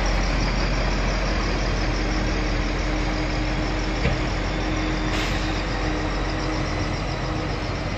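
Bitumen distributor truck's engine running steadily as the truck sprays binder onto the road from its rear spray bar, with a steady hiss over a low rumble.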